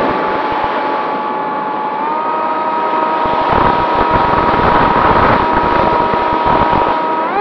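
Onboard sound of a Mini Drak FPV flying wing's electric motor and propeller: a steady whine over the rush of wind. Its pitch edges up about two seconds in and climbs sharply at the very end as the motor speeds up.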